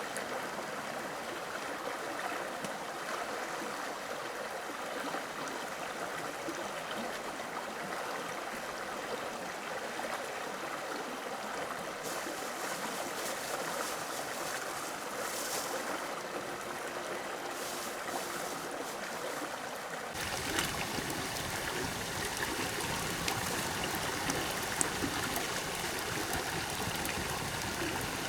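Steady rushing of flowing water, like a forest stream, with no speech. About two-thirds of the way through it turns abruptly fuller and deeper, with a few faint clicks over it.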